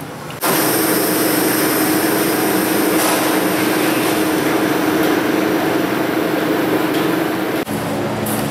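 A machine runs with a steady hum and hiss, then stops abruptly near the end.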